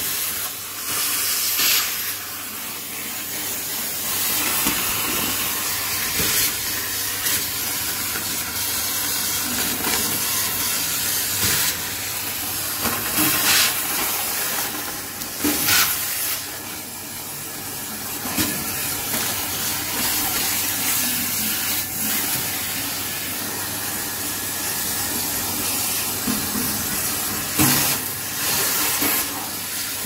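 Numatic Hetty cylinder vacuum cleaner running with a steady suction hiss as its metal wand sucks shredded paper and grit off the bottom of a metal drawer. Several brief louder clatters stand out, about a second and a half in, twice around 12 to 16 seconds, and twice near the end.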